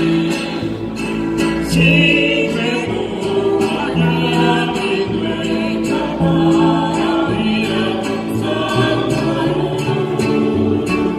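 Live Mexican folk music: an ensemble of guitars and other stringed instruments accompanying several voices singing together with vibrato.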